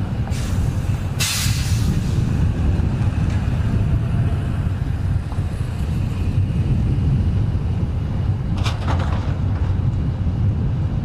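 Highway traffic passing slowly, a steady low rumble of engines and tyres. There is a brief hiss a little over a second in and a short crackle near nine seconds.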